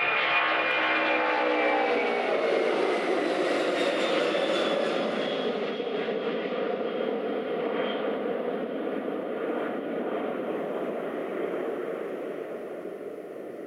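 Boeing 767-300's twin turbofan engines at takeoff thrust as the airliner lifts off and climbs away. A steady jet roar carries whining tones that fall in pitch over the first few seconds, and the roar slowly fades toward the end.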